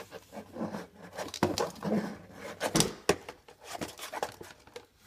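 Handling noises from trading cards and a plastic top loader: scattered light taps, clicks and rubbing as they are moved about and set down.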